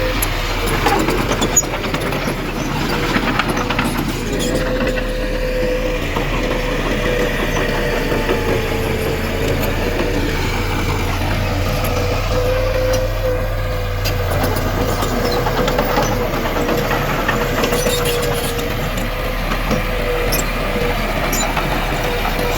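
Heavy diesel earthmoving machine, most likely the bulldozer, running steadily with a continuous rumble and a steady whine, with occasional short clanks.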